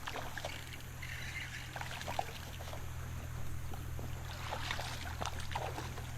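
Creek water trickling and splashing in small irregular spurts, over a steady low rumble.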